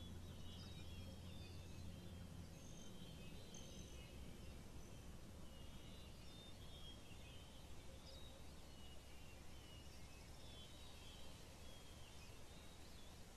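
Faint birdsong: small birds chirping and twittering, over a low steady hum that softens about two and a half seconds in.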